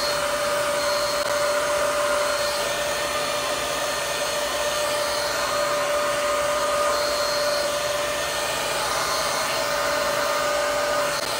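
Handheld hair dryer running steadily, blowing on hair: an even rush of air with a steady whine.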